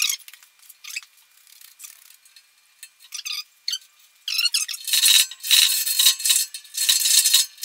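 Scattered squeaks and clinks of steel drill chips and tools, then, about five seconds in, quick repeated scraping strokes of a hand deburring tool cleaning the edge of a freshly drilled hole in a steel tractor loader bucket.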